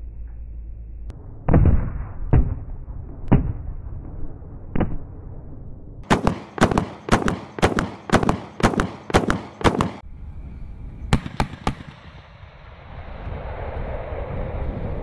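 30 mm XM813 Bushmaster autocannon on an XM1296 Stryker Dragoon firing: four single shots, then a rapid burst of about a dozen rounds at roughly three a second, then three more shots. Near the end a steady rising noise comes in from the Stryker driving.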